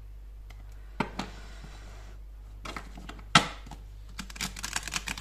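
Oracle cards handled on a table: a click and a soft sliding hiss as a card is pushed across the surface about a second in, a sharp knock a little after three seconds, then a quick run of crisp clicks as the deck is shuffled by hand.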